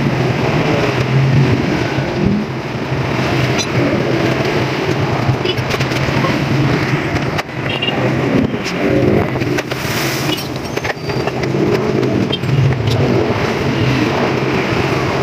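A motor vehicle engine running steadily, with a few short clicks.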